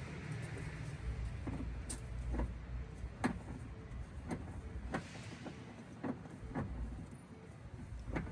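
A string of sharp metallic clicks, one every half second to a second, from a hand tool being worked during a tire change, over a steady low rumble of traffic.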